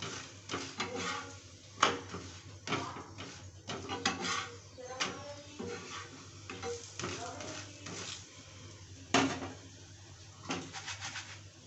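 Long metal spatula scraping, pressing and tapping on a black griddle (tawa) and a frying pan as stuffed parathas cook, with sizzling; a sharp clatter about nine seconds in as the spatula is set down on the steel stovetop.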